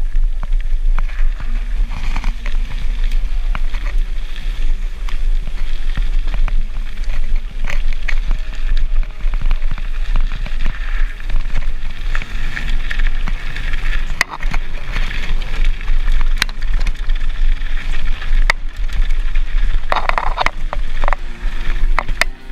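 Mountain bike ridden over a rough trail, heard through a mounted action camera: a steady low wind rumble on the microphone, with frequent rattles and knocks from the bike.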